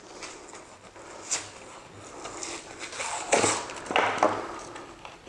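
Strip of 5/8-inch gypsum drywall core being peeled up and back off its paper facing by hand, crackling and tearing, with a sharp crack about a second in and louder tearing around three and four seconds in.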